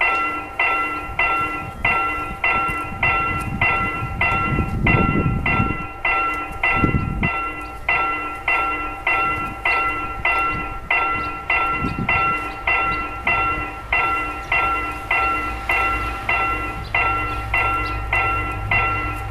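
Railway level-crossing warning bell ringing over and over, about two strikes a second. A low rumble builds under it near the end as the train approaches.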